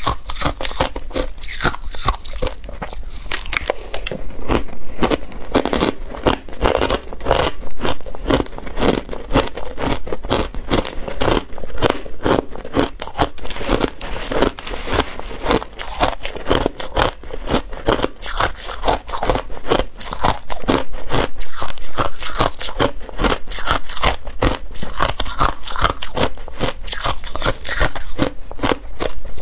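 Crushed ice being bitten and crunched between the teeth, heard close up, a dense run of crackling crunches, with a metal spoon scraping and scooping through the ice in a plastic tub.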